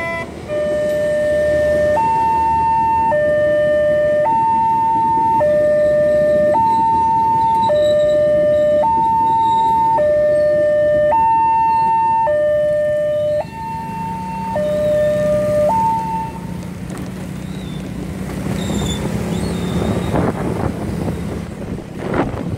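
Railway level-crossing warning signal: an electronic two-tone alarm alternating between a low and a high note about once a second, stopping about 16 seconds in, over the rumble of a passing passenger train. Near the end a motor scooter's engine pulls away.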